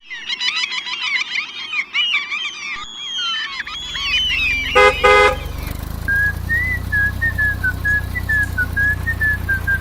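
Birds chirping, then a tractor engine starts and runs with a steady low rumble. Its horn toots twice about five seconds in, and over the running engine a tune is whistled.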